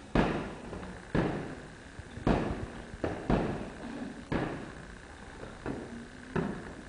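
Gloved punches landing with sharp thuds, about one a second, each followed by a short echo off the hall walls.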